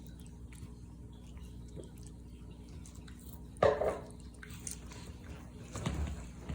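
A Shiba Inu gnawing on a dried Achilles tendon chew: sporadic faint clicks, with one louder crunch about three and a half seconds in and more chewing noise near the end.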